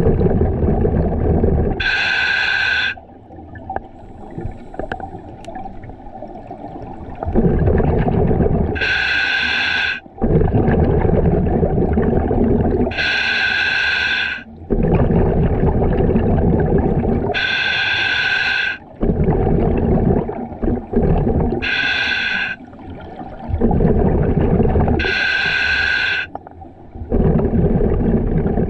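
Scuba diver breathing through a regulator underwater, about six breaths: each is a short hissing inhale through the demand valve followed by a longer bubbling exhale as air leaves through the exhaust.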